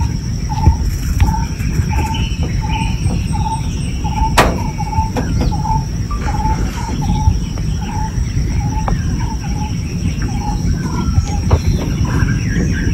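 Outdoor bush ambience: a bird repeats a short note about twice a second, other birds chirp, and insects keep up a steady high drone, over a constant low rumble. A single sharp click comes about four seconds in.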